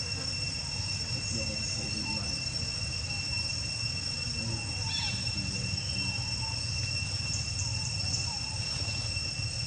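Insects droning in the trees: a steady high-pitched whine held on two pitches, over a low background rumble.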